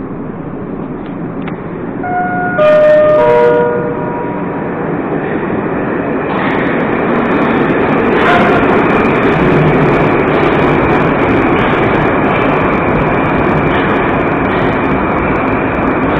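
A short signal of three falling notes, then a Moskva-2019 metro train arriving at the platform. Its running noise builds from about six seconds in, with a short burst of noise near eight seconds, and holds steady as the train draws to a stop.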